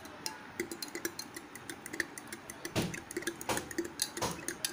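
A metal utensil stirring a syrupy liquid in a glass tumbler, clinking and tapping against the glass in quick, irregular ticks. A few louder knocks come in the second half.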